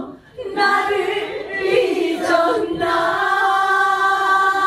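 A woman sings a trot phrase unaccompanied into a microphone. It moves through a few short notes and then settles about three seconds in on a long held note with a wavering vibrato.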